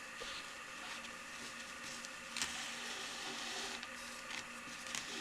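Faint handling sounds of hand-stitching: a needle pushed through a slipper sole and felted wool and the shoe thread drawn through, with a soft rasping stretch midway and a couple of small clicks.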